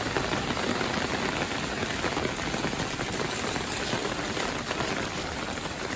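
Heavy downpour from a sudden thunderstorm, with rain pouring onto a wet street. It makes a steady, dense hiss full of fine drop patter.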